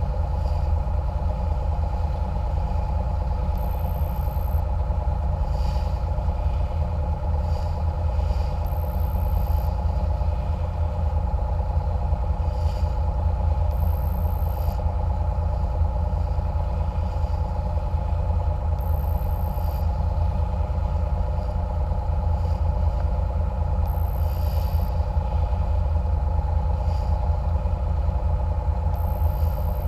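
Engines of a small catamaran cruiser running steadily under way, a constant low rumble with a steady hum above it. A faint, very high-pitched tick repeats about every five seconds.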